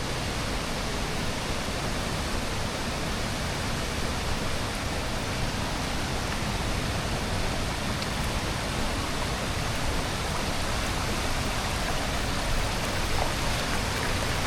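Steady rush of a woodland stream's flowing water, an even hiss with no distinct splashes.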